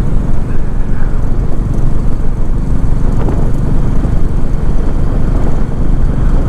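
Motorcycle riding along a road: a steady, loud rumble of wind buffeting the microphone over the engine running.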